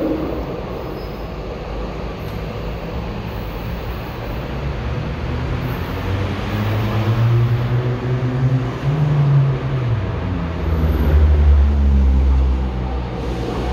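São Paulo Metro train approaching along the track toward the platform, a low rumble with humming tones from its motors that shift in pitch and grow louder as it nears, loudest about 11 to 12 seconds in.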